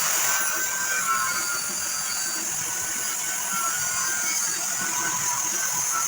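Angle grinder grinding down the steel frame rail of a truck, a steady high-pitched whine and grind that runs without a break.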